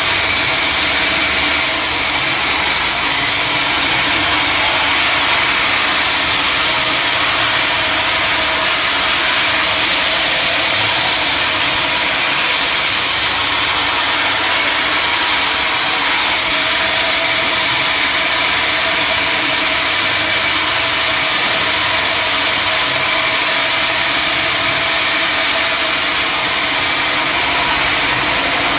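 Sawmill machinery running steadily while sawing acacia wood: a loud, unbroken mechanical noise with an engine-like drone.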